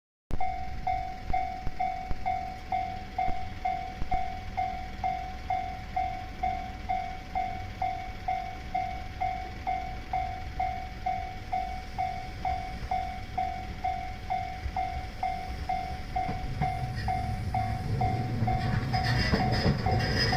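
Japanese level crossing warning bell ringing steadily, about two strikes a second, each a clear ringing tone. In the last few seconds the low rumble of the approaching E131 series electric train builds up beneath the bell.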